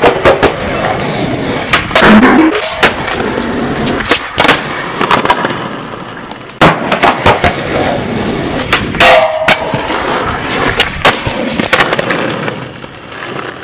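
Skateboard wheels rolling on concrete and asphalt, with repeated sharp clacks of the board hitting the ground as tricks are popped and landed.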